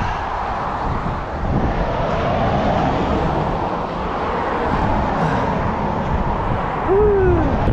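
Strong wind buffeting the microphone in a steady, loud rumble. About seven seconds in, a short pitched sound rises and then falls.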